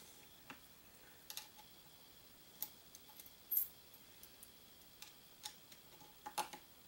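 Small metal parts and a tool on a lever-action rifle's receiver clicking and tapping at uneven intervals as a pin and screw are worked into place. The clicks are faint and irregular, with the sharpest about halfway through and a small cluster near the end.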